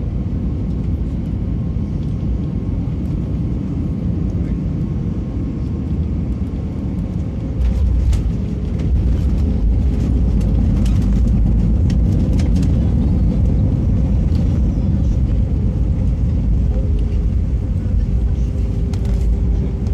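Airbus A320 landing, heard from inside the cabin: a steady rumble on the final approach, then the touchdown about eight seconds in, after which the rumble grows sharply louder and the cabin rattles and knocks as the airliner rolls out with its spoilers up.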